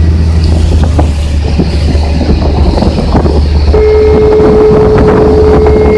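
Ferry's engine running with a steady low drone under the rush of the crossing; about two-thirds of the way in, a long, steady single-pitched beep from the ferry's signal starts and holds.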